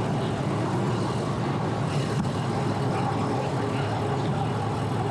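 Boat engine running steadily as the boat is power loaded onto its trailer at the ramp.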